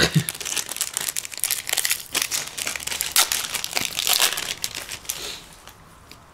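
Foil wrapper of a Yu-Gi-Oh booster pack crinkling and crackling as it is handled and torn open. The crackling dies away about five and a half seconds in.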